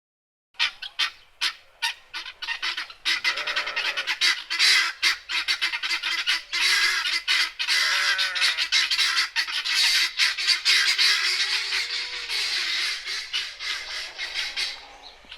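Helmeted guinea fowl calling in a rapid, harsh chatter: a few scattered calls about half a second in, building to a dense, continuous cackling that thins out near the end.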